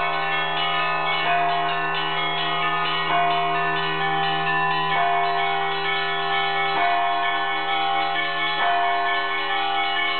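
Russian Orthodox church bells rung by hand from the belfry: a big bell struck about every two seconds under a continuous ringing pattern of smaller bells, with a steady deep hum lingering between strikes.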